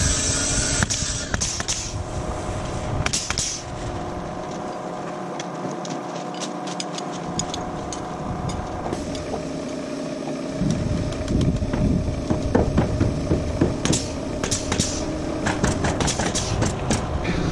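A steady mechanical hum with a low rumble under it. The rumble drops away for several seconds mid-way. From about ten seconds in come scattered light clicks and knocks.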